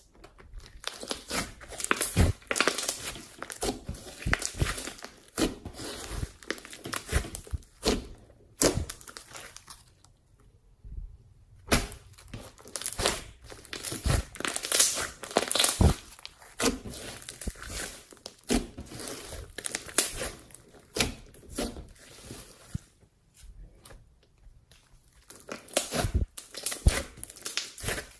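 Slime being squeezed and stretched by hand, making dense crackling and popping, with a couple of short quieter lulls.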